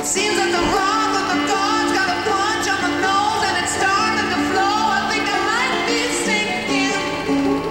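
Music: a pop song playing, in a passage without sung words, its lead melody sliding up between notes over a steady accompaniment.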